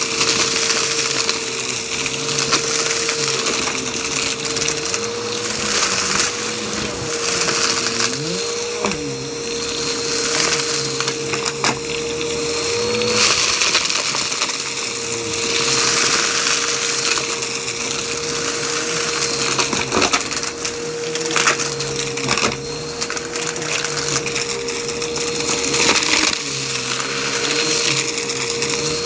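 Bissell upright vacuum cleaner running with its brushroll spinning on carpet: a steady motor whine under dense crackling and rattling as it sucks up a pile of lint and small wood bits.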